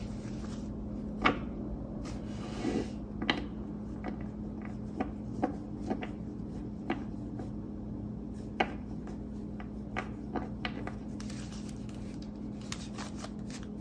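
Hands with long acrylic nails handling a tarot deck: scattered, irregular clicks and taps with a couple of soft rustles. The loudest click comes about a second in, and a steady low hum runs underneath.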